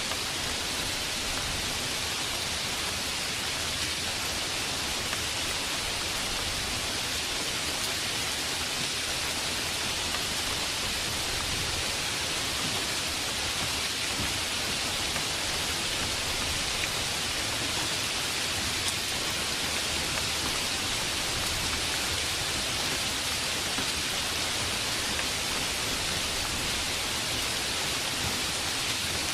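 Heavy rain sound effect: a steady, even hiss of rainfall that does not change.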